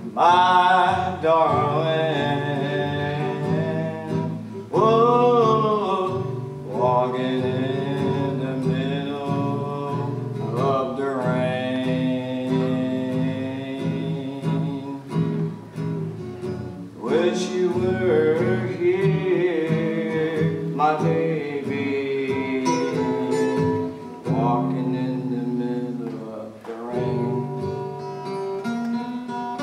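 A man singing a slow song in phrases, accompanying himself on a strummed acoustic guitar.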